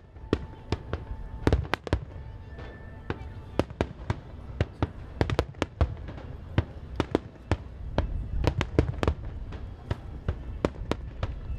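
Aerial fireworks going off in quick succession: a dense, irregular run of sharp bangs and cracks over a low rumble.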